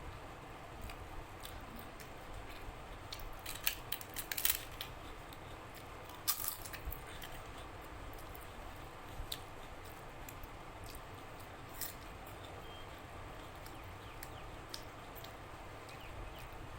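Close-up eating sounds: chewing with wet mouth clicks and smacks, coming in clusters about four seconds in and again around six and a half seconds, with a few single clicks later.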